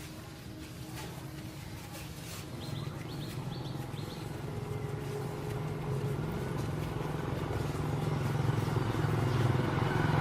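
A steady low engine drone that grows gradually louder, with a few short bird chirps about a third of the way in.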